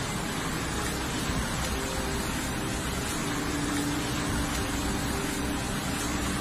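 Fast-flowing muddy floodwater rushing and churning through a street, a steady, unbroken wash of water noise.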